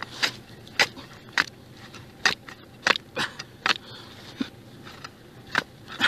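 Iron ice chisel striking and chipping sea ice in a fishing hole, about nine sharp chops at uneven intervals. The chisel is breaking through the ice bridge at the hole to widen it for landing a hooked flounder.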